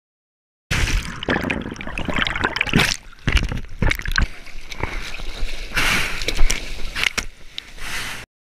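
Seawater splashing and sloshing right against a mouth-mounted GoPro, in irregular bursts as the camera dips in and out of the surface and spray hits it. It starts abruptly about a second in and cuts off shortly before the end.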